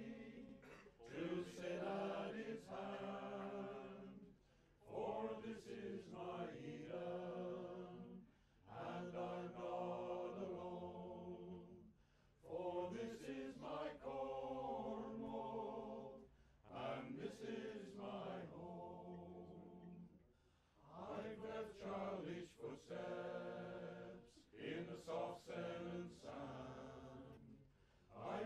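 Background music of voices chanting together in sung phrases a few seconds long, separated by short breaks.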